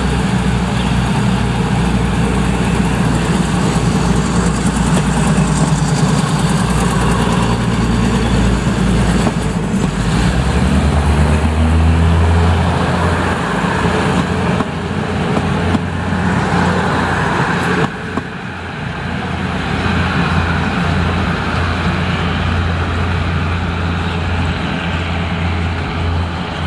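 Diesel multiple-unit railcar train passing close by and pulling away, its underfloor diesel engines running with a steady low drone.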